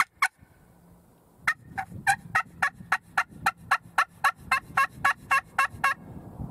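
Hen turkey yelps made on a hand-held friction turkey call worked with a striker: two quick notes at the start, then after about a second and a half a long, even run of about twenty yelps at roughly four a second, stopping near the end. It is a calling sequence to draw a gobble from any tom in the area.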